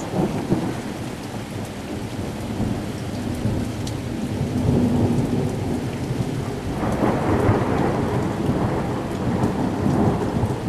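Heavy rain falling steadily, with thunder rumbling low underneath and swelling louder in the second half.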